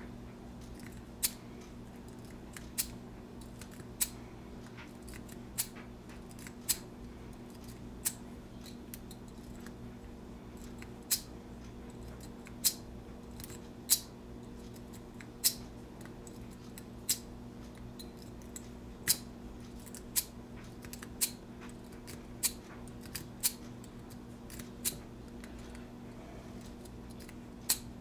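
An S rake being zipped again and again out of the keyway of a brass Master Lock padlock under light tension, each pull giving a sharp metallic click as the pin tumblers snap back. There are about twenty clicks at irregular intervals of roughly a second, with a pause of a few seconds partway through.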